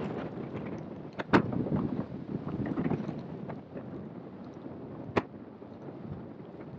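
Rushing wind noise from the airflow over a hang glider in flight buffeting a wing-mounted camera's microphone. Two sharp knocks break through, the louder about a second and a half in and another about five seconds in.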